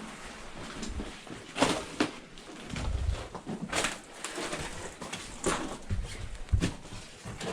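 Irregular scrapes and crunches of boots on rock, with a few low thumps, as people clamber through a mine passage.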